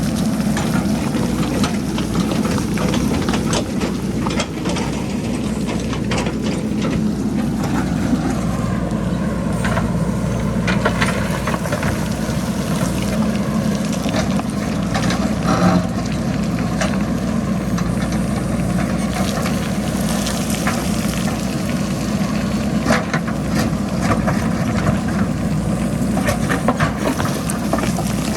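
A JCB backhoe loader's diesel engine running steadily as it works, with scattered clattering knocks of boulders and pebbles tumbling down the hillside it is cutting. The engine note dips briefly about eight seconds in.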